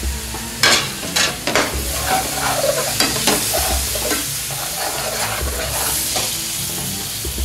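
Curry sizzling in a hot metal frying pan as a chef's spoon stirs in freshly added base gravy, the spoon scraping and knocking against the pan several times.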